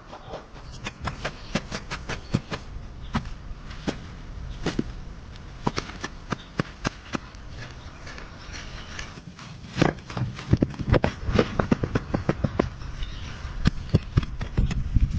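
A run of irregular sharp clicks and knocks, sparse at first and coming thicker and louder from about two-thirds of the way through.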